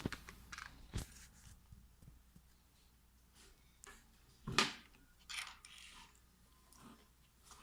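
Small objects being handled: a series of irregular clicks, light knocks and rustles, the loudest knock about four and a half seconds in.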